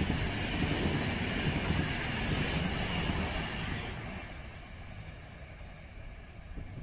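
Egyptian National Railways passenger train's coaches rolling past on the rails, a steady wheel-on-rail noise that fades away from about four seconds in as the last coach moves off.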